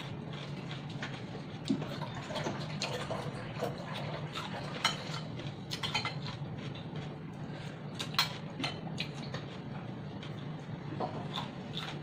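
Crunchy chewing of raw cucumber, apple and bell pepper, with metal chopsticks clicking against a glass bowl in many short, sharp ticks. A steady low hum runs underneath.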